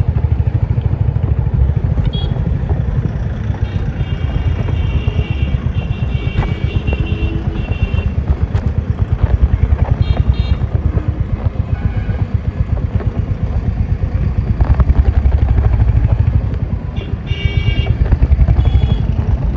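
Royal Enfield Hunter 350's single-cylinder engine and exhaust thumping steadily as the bike rides along, swelling louder a few times as it pulls away. Horns sound in the surrounding traffic for a few seconds at a time, twice.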